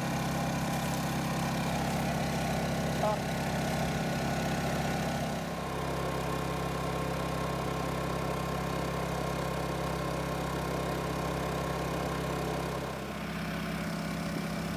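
Portable Rainman watermaker running steadily, its motor-driven high-pressure pump humming while the pickling solution is flushed out on its first start. The hum shifts in pitch slightly about five seconds in and again near the end.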